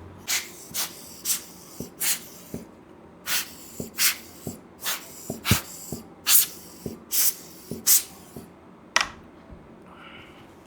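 A camera body being cleaned by hand: about a dozen short hissing sounds in an uneven run, with faint clicks between them, and a softer one near the end.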